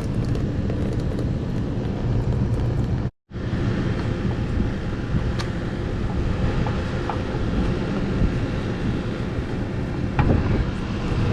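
Steady low rumbling background noise with a few light clicks and taps; the sound cuts out completely for a moment about three seconds in.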